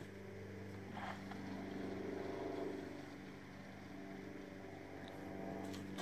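A steady low mechanical hum made of several pitched tones, swelling a little about two seconds in, with a faint tap about a second in.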